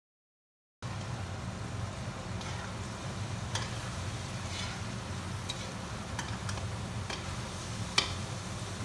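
Chopped vegetables stirred in a metal pan with a metal spatula: scattered clicks and scrapes of the spatula against the pan, one sharper near the end, over a steady low hum and faint hiss. The sound begins abruptly about a second in.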